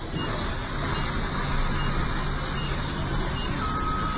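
A heavy machine's engine running steadily. Short high beeps repeat a little under once a second, and a longer, lower beep comes in near the end.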